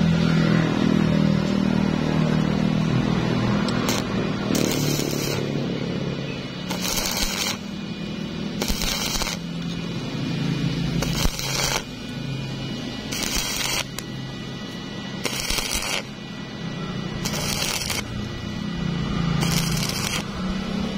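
Stick welder arc crackling in short bursts of under a second, about every two seconds, as tack welds are struck on a butt joint between steel reinforcing bars. A steady low drone runs underneath.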